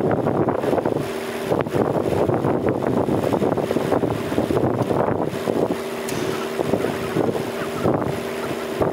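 A motor vehicle engine idling steadily, with wind buffeting the microphone.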